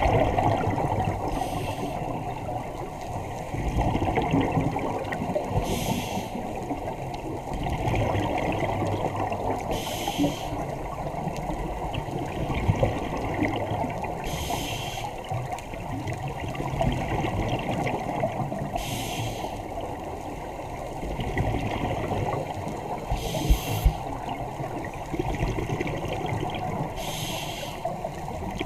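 Underwater recording of a scuba diver breathing through a regulator: a short hiss on each breath about every four and a half seconds, seven in all, over steady bubbling water noise.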